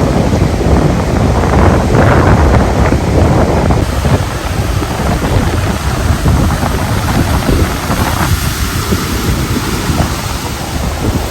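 Ocean surf and swell breaking, with strong gusty wind buffeting the microphone in a deep rumble. The gusts are strongest in the first four seconds and ease somewhat after.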